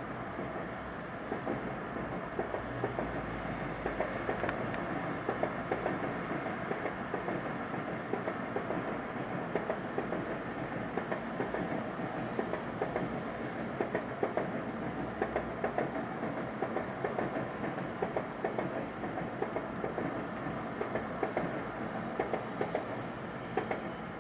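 N700-series Shinkansen train pulling out of the station at low speed, heard through window glass: a steady rumble with rapid, irregular clicking as its wheels pass over rail joints and points.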